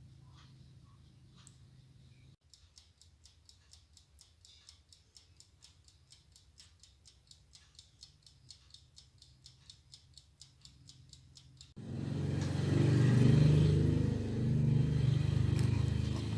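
Mechanical timer on a small electric oven ticking rapidly and evenly, about five ticks a second. Near the end it gives way to a much louder rough scraping and rubbing noise.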